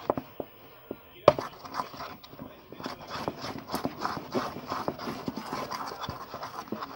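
Sticky homemade slime being kneaded and stretched by hand, making irregular wet clicks, pops and squelches that thicken into a busy run of crackling from about three seconds in.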